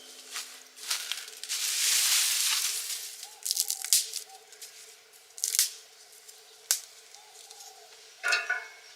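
Wood cooking fire crackling, with scattered sharp pops and a longer hissing rush in the first few seconds. A brief higher-pitched sound comes near the end.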